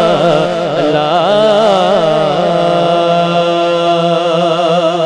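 Male voice singing a devotional naat in a long, wavering, ornamented line that settles onto a steady held note about two and a half seconds in.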